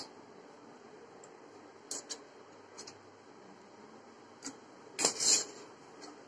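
Metal spatula scraping chopped pineapple off a steel plate into a steel bowl: a few light clinks and scrapes, with a louder scrape about five seconds in.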